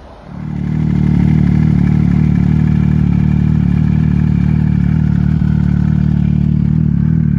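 Snowmobile engine fading in within the first second, then running at one steady, unchanging engine speed.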